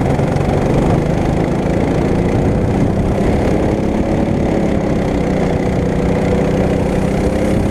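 Go-kart engine running under load as the kart drives. Its pitch climbs slowly through the second half as the kart accelerates out of a corner onto a straight.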